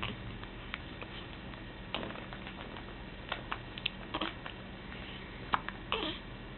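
Hiccups: short, sudden hic sounds about every two seconds, among fainter clicks, over a low steady hum.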